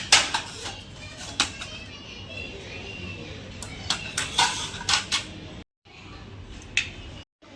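Irregular clicks and knocks of hard objects, some in quick clusters, over a low steady background, cut off twice by brief dropouts to silence near the end.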